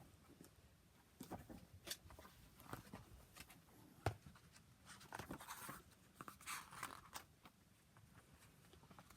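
Fidget toys being handled: quiet scattered clicks and rustling, with one sharper click about four seconds in and a longer rustle a second later.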